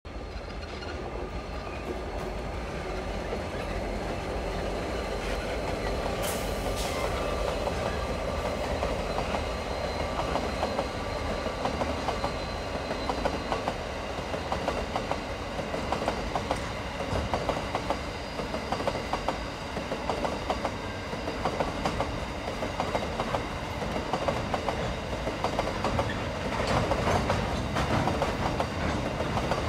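Aurizon diesel-electric locomotives hauling a long train of empty coal wagons, running steadily with a rumble and a few held tones, then the clickety-clack of the empty wagons' wheels over the rail joints as they pass, the clicks coming thick and fast from about halfway through.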